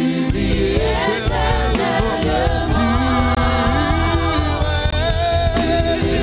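Live gospel worship music: a man and a woman singing in French into microphones over a band with a constant low bass.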